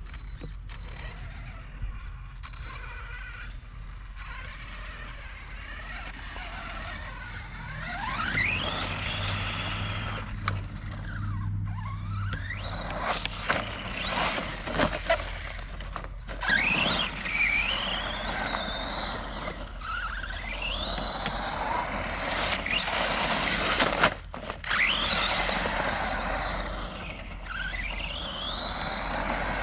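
Brushless electric motor of a Redcat Camo TT Pro RC trophy truck, run on a 3S LiPo, whining as the truck accelerates and backs off over and over. The pitch rises and falls repeatedly, mostly from about eight seconds in; before that it is quieter.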